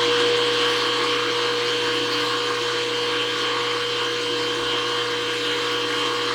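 An electric motor running steadily with a constant whine, switched on just before and holding an even speed.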